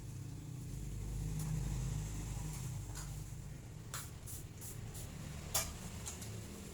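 Light clicks and knocks of nursing equipment being handled and packed away, scattered over several seconds with the sharpest about five and a half seconds in, over a low steady background rumble.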